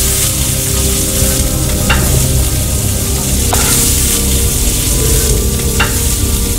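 Food sizzling in hot fat, a steady loud hiss with a few sharp crackles, over sustained low music tones.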